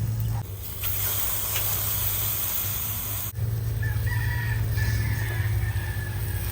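A rooster crowing: a long drawn-out call over the second half, over a steady low hum. Before the crow, a hiss cuts off suddenly about halfway through.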